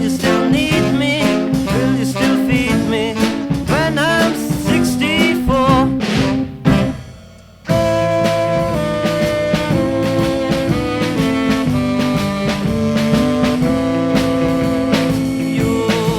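Instrumental beat-band music with saxophone, organ, bass and drums, played live in the studio without added echo. One piece fades out about six and a half seconds in, and after a short gap the next one starts with held chords.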